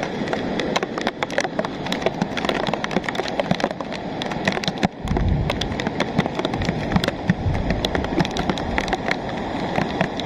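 Rain pattering close by over the steady rush of a rain-fed lahar, muddy volcanic floodwater pouring down its channel. A deeper rumble joins about halfway.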